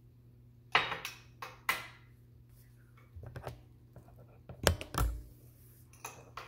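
Kitchen clatter as a spoon and small bowl are handled and set down on a countertop: a string of sharp clinks and knocks, the loudest a heavier thud about five seconds in, over a low steady hum.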